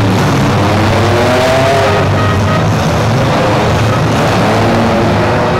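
Several demolition-derby SUV, pickup and minivan engines revving at once, loud and continuous, their pitches rising and falling as the vehicles manoeuvre.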